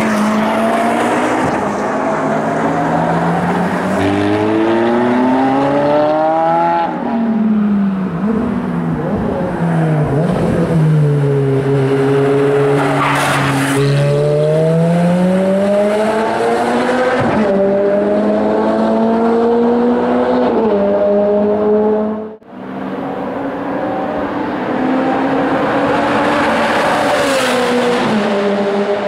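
Ferrari F430 Spider's 4.3-litre V8 on track, revving up through the gears with the pitch stepping down at each shift, then dropping through downshifts as it slows. The car passes close by twice.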